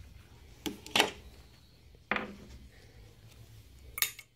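Handling noise from a motorcycle brake master cylinder body held in a bench vise: four short knocks and clicks, the loudest about a second in, with faint rubbing between them.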